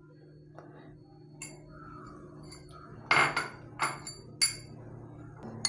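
A spoon clinking against small glass and ceramic bowls as spices are tapped out and the bowls are handled: a few sharp, ringing clinks, loudest about three seconds in, with two more over the next second and a half.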